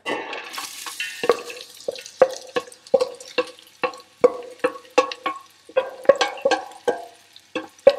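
Wooden spoon scraping and knocking chopped vegetables out of a stainless steel bowl into a pot, about two to three knocks a second, the metal bowl ringing after each one. A short hiss of the vegetables landing in hot olive oil near the start.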